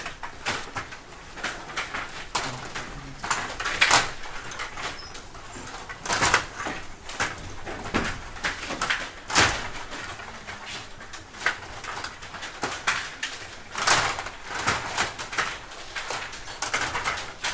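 Stiga table hockey game in play: irregular clacks and knocks of the puck and plastic players, with the player rods sliding and rattling in the table. A few sharper knocks stand out, about four seconds in, just after halfway and about fourteen seconds in.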